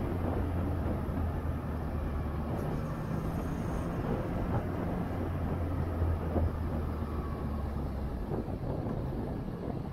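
Yamaha Tracer 900 GT's inline three-cylinder engine running at low, steady revs as the motorcycle rolls slowly. The engine hum fades near the end.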